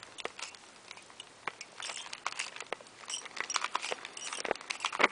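Two Rubik's cubes being turned fast: a run of quick, irregular plastic clicks, sparse at first and coming thicker and louder after about three seconds.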